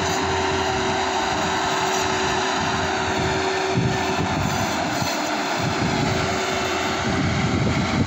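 Rice combine harvester's engine running steadily, with a steady whine that fades about five seconds in.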